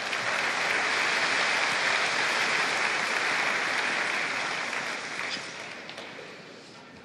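Arena crowd applauding after a point won by the home player. It swells quickly at the start, holds for a few seconds, then dies away over the last two seconds.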